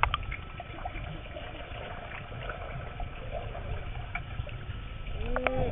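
Muffled underwater sound of a swimming pool picked up by a submerged camera: a steady low rumble with faint water movement and a few small ticks as a toddler swims under water. A brief muffled pitched sound comes just before the end.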